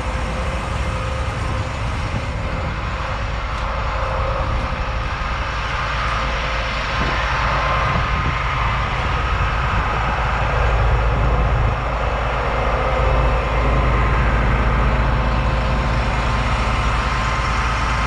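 2006 International chipper dump truck's engine idling steadily, with a faint steady whine over the low rumble, getting a little louder in the second half.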